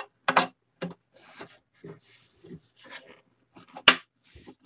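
Handling noise as a loudspeaker is fitted onto its mounting studs inside a wooden radio cabinet: scattered light knocks, rubs and rustles of the metal speaker frame and hardware against the wood, with one sharp click about four seconds in.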